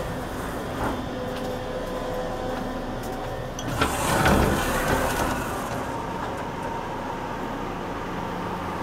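Steady hum inside a stationary E653-series express train car, with a few steady tones from its on-board equipment and air conditioning. About four seconds in comes a short rushing clatter from the automatic sliding door between the vestibule and the seating area.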